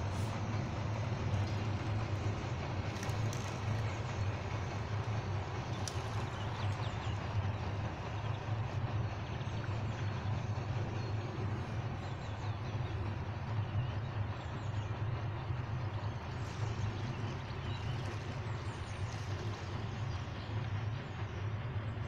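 Steady low rumble with an even hiss above it, unbroken throughout, and a few faint high chirps in the second half.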